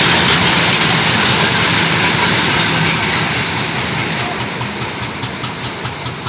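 Goods train of covered box wagons running past at speed: a steady rush of steel wheels on the rails that slowly fades over the last few seconds as the last wagon goes by, with a few sharp wheel knocks near the end.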